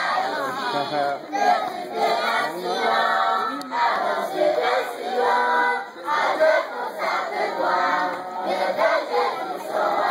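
A large group of children singing together in unison, loud and continuous, in phrases with a short break about six seconds in.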